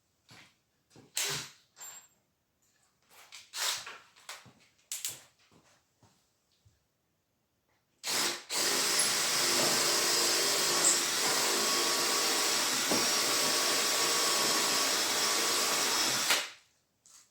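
A few light knocks and taps, then a power drill starts about eight seconds in and runs steadily for about eight seconds before stopping, as pegs are taken out of the chair's joints.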